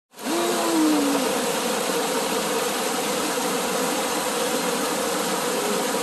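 Mountain stream cascading over a small rocky waterfall into a foaming pool: a steady rushing splash of falling water.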